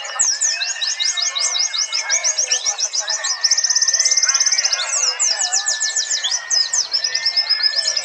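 Several white-eyes (pleci, Zosterops) singing together in a contest chorus: fast, high, tumbling chirps, with a rapid even trill about three and a half seconds in that lasts about a second.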